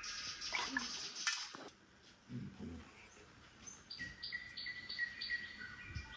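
Small birds chirping: a quick run of short, falling high notes, a brief lull, then a steady series of short chirps about three a second.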